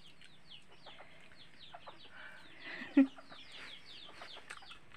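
Chicks peeping: a steady stream of short, high, falling chirps, with one brief louder sound about three seconds in.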